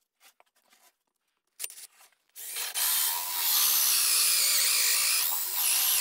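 Cordless drill spinning a 1¾-inch hole saw through an old barn board, boring a birdhouse entrance hole. It starts about two and a half seconds in, after a few light knocks, and runs steadily, its pitch dipping briefly near the end.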